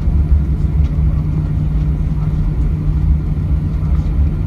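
Steady low rumble inside the cabin of an Airbus A321 airliner, with a constant low hum under it.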